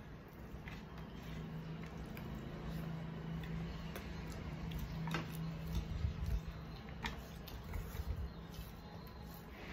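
Eating by hand: fingers squishing and mixing rice with curry on plastic plates, with chewing and a few sharp mouth-smacking clicks. A low steady hum runs underneath through most of it.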